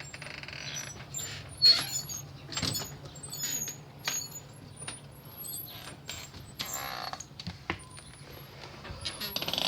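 Small birds chirping in short, high-pitched notes around the feeders, over a steady low hum, with scattered sharp clicks.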